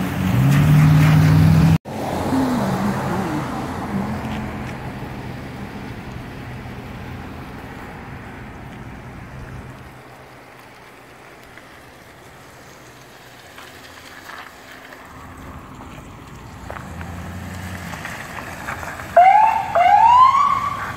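A vehicle driving along a wet road, its engine rising in pitch over tyre hiss, until a cut about two seconds in. Later an engine idles and pulls away, and near the end a fire department command SUV's siren gives two short rising whoops.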